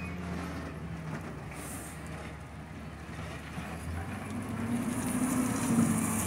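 Peterbilt 320 garbage truck with a McNeilus Meridian front-loader body pulling away, its engine running steadily at low speed. About four seconds in, the engine note changes and starts to climb, growing louder as the truck accelerates into a turn.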